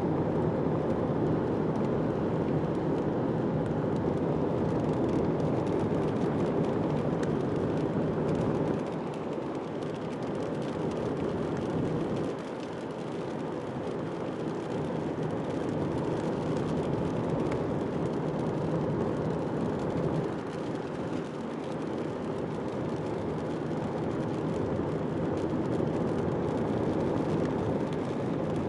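Road noise inside a moving car: a steady rumble of tyres and engine, easing a little about nine and twelve seconds in.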